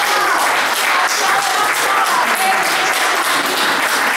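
A congregation applauding, a steady stretch of many hands clapping, with voices faintly heard over it.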